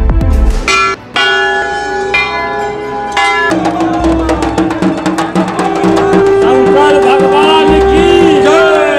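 Bells struck a few times, ringing on. Then a drum is beaten fast under a long held tone, with wavering calls rising over it near the end.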